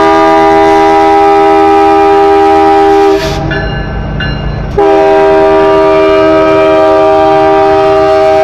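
Locomotive air horn of a Union Pacific intermodal train sounding a long, steady multi-note chord. It breaks off about three seconds in for a second and a half, leaving the low noise of the passing train, then sounds again.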